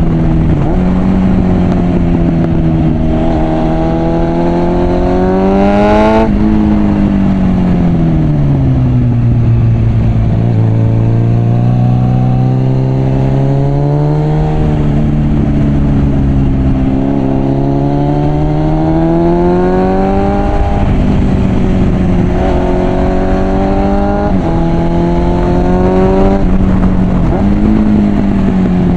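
Suzuki GSF650 Bandit's inline-four engine through a Mivv aftermarket exhaust, heard while riding: the revs climb and then drop sharply at a gear change about six seconds in. They fall away slowly through a long slow-down, then pick up again in several rises, each cut off by a quick drop.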